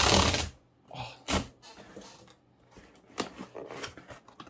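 Tear strip ripped along the top of a corrugated cardboard shipping box: one loud rip at the start, then short scrapes and knocks as the cardboard flaps are pulled open.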